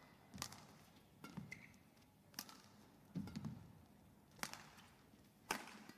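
Badminton rackets striking a shuttlecock in a fast singles rally: sharp cracks about once a second, with low thuds of the players' footwork in between.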